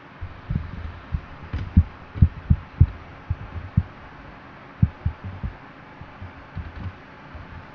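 Irregular dull, low thumps and bumps of handling close to the microphone, about fifteen over several seconds. They are thickest between half a second and three seconds in and again around five seconds, and the loudest come around two to three seconds in.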